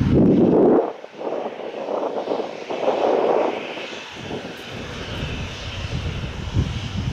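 Boeing 737-800's CFM56 jet engines running at low taxi power, a steady high whine and hiss, with gusty wind rumbling unevenly on the microphone and briefly dropping away about a second in and again around four seconds in.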